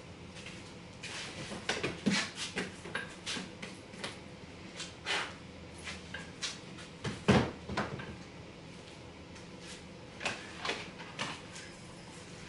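Scattered clunks, knocks and rattles of tools and plastic cases being handled and set down, with one louder thump about seven seconds in.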